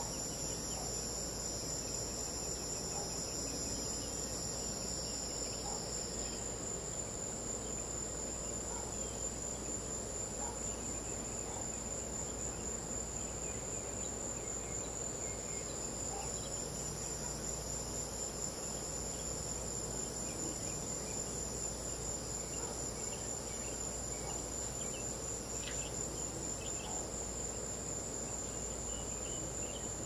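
Crickets trilling in a steady, continuous high-pitched chorus. A second, slightly lower trill drops out for about ten seconds midway, then returns.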